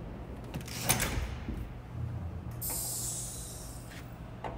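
Steady low hum with a few sharp clicks and a brief hiss about two and a half seconds in.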